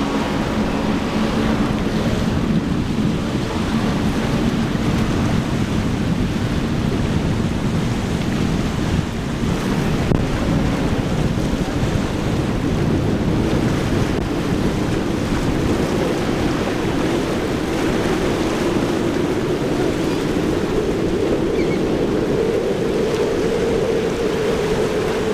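Surf and wind buffeting the microphone, with boat outboard engines running at speed beneath. An engine tone fades out in the first second, and another slowly rises in pitch through the second half.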